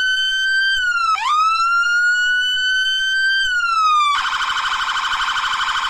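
Electronic police escort siren: a wailing tone that drops sharply and swoops back up about a second in, climbs slowly and sinks again, then switches to a rapid warble about four seconds in.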